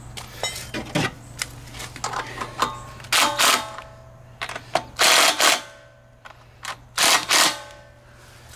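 Hand ratchet clicking in several short spells with a metallic ring, as the nuts holding the recoil starter cover on a Honda GCV190 engine are tightened. The loudest spells come about halfway through and again near the end.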